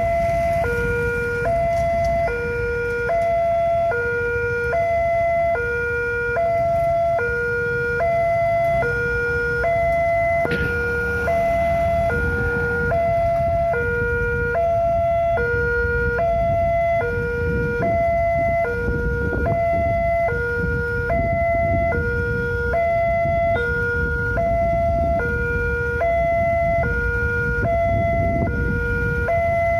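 Indonesian railway level-crossing warning alarm sounding without a break, an electronic two-tone signal alternating high and low with each tone held about half a second, warning that a train is coming. Underneath is the low rumble of cars and motorcycles waiting at the crossing.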